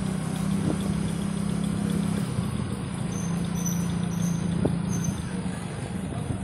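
Motorcycle engine running steadily at low road speed, its hum shifting in pitch a couple of times, over tyre and wind noise.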